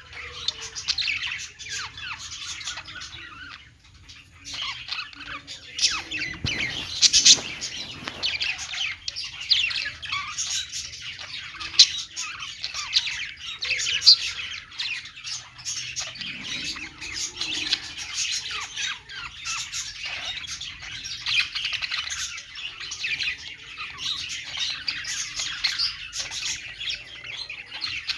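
Several pet budgerigars chattering at once: continuous warbling chirps mixed with sharp squawks, with a brief lull about four seconds in.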